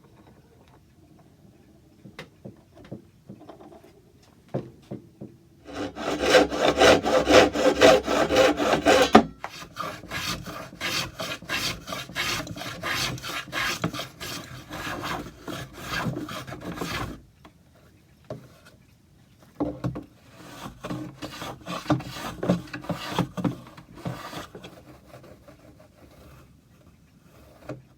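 Wood being worked by hand: rapid back-and-forth rubbing strokes on a small mahogany patch, like filing or sanding it. The strokes come in three bouts, and the first is the loudest, with a few light knocks in the pauses.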